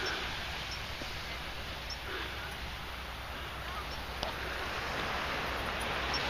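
Steady hiss of wind and distant surf, with a few faint short high chirps scattered through it.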